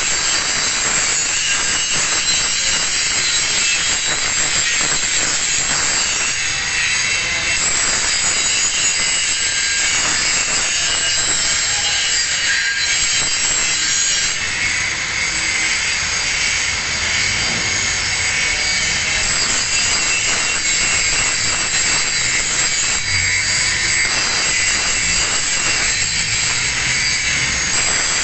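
Angle grinder grinding a single bevel on a steel plate edge, running continuously with a high-pitched whine over the grinding noise.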